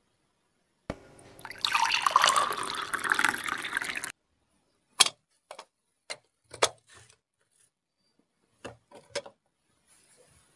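Red juice poured from a small plastic toy blender jug into a toy teacup: a splashing, trickling fill of about three seconds that starts about a second in and stops suddenly. Then a handful of light plastic clicks and taps as the toy pieces are set down.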